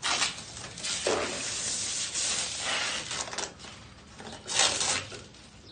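Protective plastic film being peeled off a glossy Filon fiberglass panel: a long tearing rustle for about three seconds, then a shorter, louder one about four and a half seconds in.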